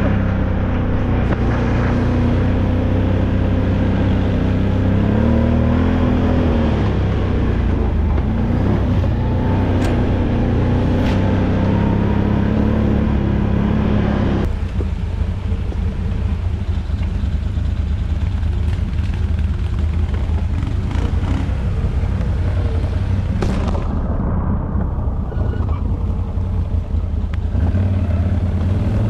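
ATV engine running as the quad is ridden, its note rising and falling. About halfway through, the clear engine note gives way to a rougher rumble.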